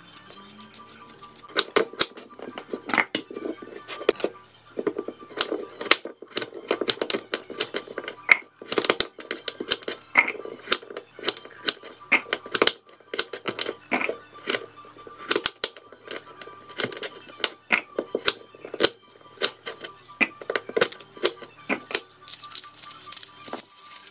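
Chef's knife chopping a carrot on a cutting board: quick, irregular knocks, several a second, which begin about a second and a half in.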